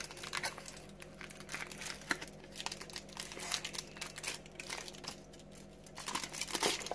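Foil wrapper of a chocolate bar being crinkled and peeled back by hand: an irregular run of crackles, loudest just before the end.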